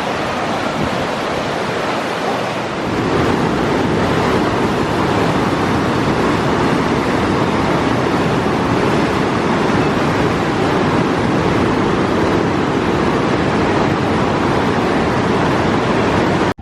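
Steady rush of a flood-swollen river in spate, growing louder about three seconds in and then holding steady.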